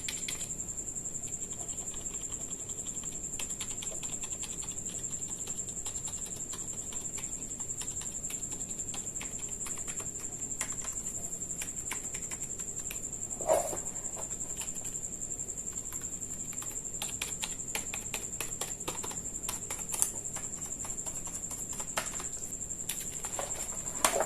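Keys of a Cosmic Byte Galactic wired gaming keyboard being pressed and typed on to show their sound: a continuous run of clicks and clacks, with a louder knock about halfway through.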